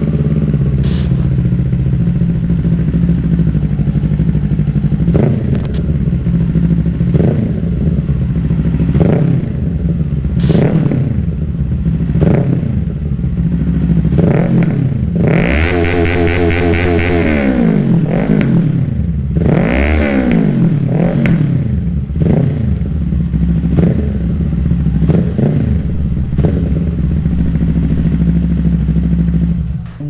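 Kawasaki Eliminator 450's 451cc liquid-cooled parallel-twin engine idling, with repeated quick throttle blips and a longer rev held for a couple of seconds about halfway through. The engine stops near the end.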